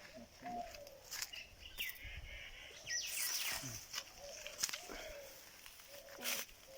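Birds chirping and calling: short falling chirps and a few lower whistled notes, with a few brief clicks or knocks in between.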